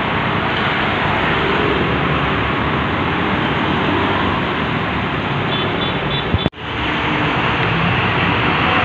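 Road traffic on a wet road: a container truck and a motorcycle passing, engines running under a steady hiss of tyres on the wet surface. About six and a half seconds in there are two clicks and the sound cuts out for a moment.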